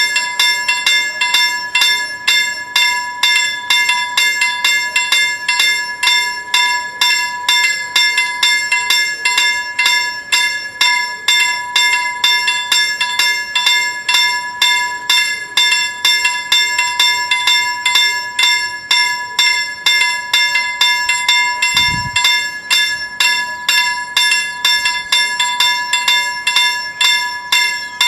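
Level-crossing warning bells ringing continuously in quick, even strikes, about three a second, with a steady ringing tone: the crossing's signal that a train is approaching and the barriers are down. A brief low thump about 22 seconds in.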